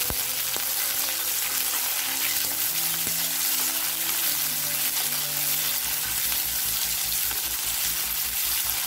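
Sliced onion sizzling steadily in hot oil in an aluminium kadai, stirred with a wooden spoon as it sautés.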